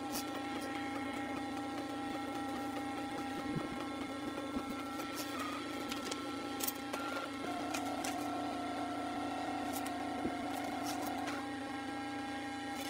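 Printer running as it prints a page of wedding photos: a steady mechanical hum with small clicks, its tone shifting for a few seconds past the middle.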